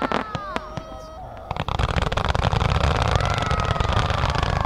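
Fireworks display: whistling fireworks give falling tones at first, then about one and a half seconds in a dense rapid crackle of launches and bursts sets in with a heavy low rumble, a fainter whistle falling through it.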